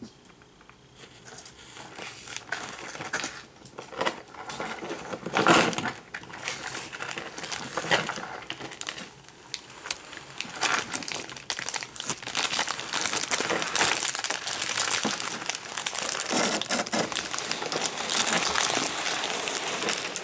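Plastic bags and papers crinkling and rustling irregularly under a Nile monitor lizard crawling over them, with a sharp loud crackle about five seconds in and denser crinkling through the second half.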